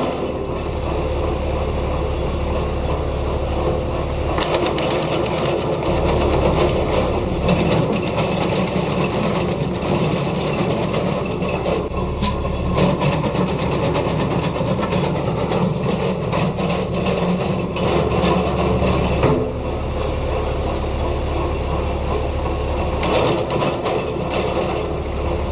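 Tractor-driven two-shaft wood chipper with six knives running steadily on the tractor's engine, with a run of sharp cracks through the middle.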